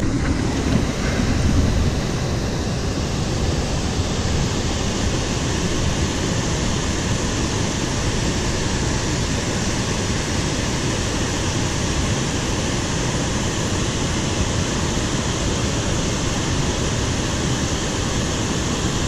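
Steady rush of flowing river water, a little louder in the first couple of seconds.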